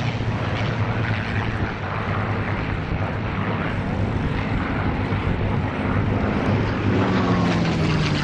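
Piston-engined WWII fighter planes flying past in formation, a steady propeller-engine drone. About seven seconds in, the engine note of a passing plane drops in pitch as it goes by.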